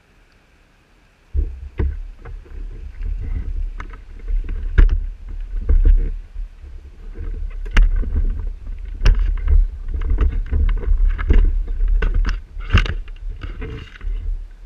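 Handling noise on an action camera held against rough tree bark: a loud, uneven low rumble full of knocks and scrapes. It starts suddenly about a second and a half in as the camera is moved about.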